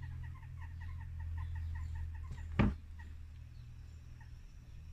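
A bird's quick repeated calls, about five a second, stop a little over two seconds in. Then comes a single sharp clunk as the side cover comes off the Honda QR50's engine. A steady low hum runs underneath.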